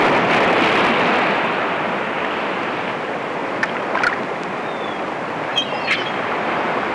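Steady rushing noise of water, with a few short high-pitched sounds about halfway through.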